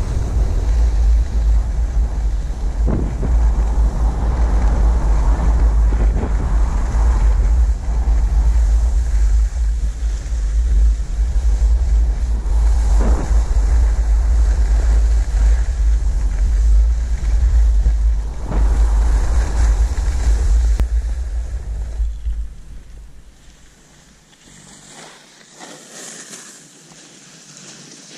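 Wind buffeting the camera microphone during a downhill ski run, a heavy rumble with the hiss of skis scraping over the snow. About 22 seconds in, the rush drops away to a much quieter stretch.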